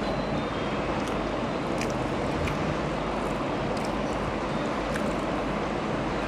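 Steady rushing background noise with a few faint clicks.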